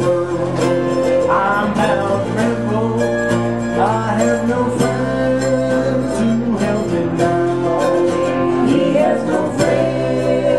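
Live acoustic country-style music: a strummed acoustic guitar and a picked mandolin, with a man singing.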